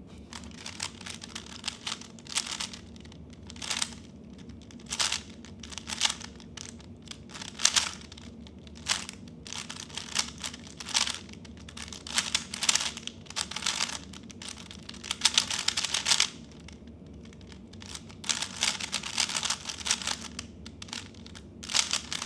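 3x3 speedcube being turned fast: rapid bursts of clicking plastic layer turns with short pauses between them. This is a timed speedsolve running from after the cross through the last layer.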